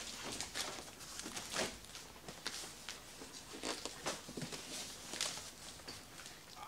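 Large cardboard TV box being hauled out and lifted upright: a run of irregular cardboard scrapes and rubs with light knocks.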